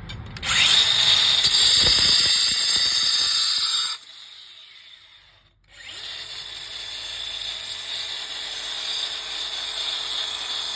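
Angle grinder with a diamond blade cutting a steel screw shorter. A loud, high grinding runs for about three and a half seconds, then the grinder winds down and stops. About two seconds later it starts up again and runs steadily, more quietly.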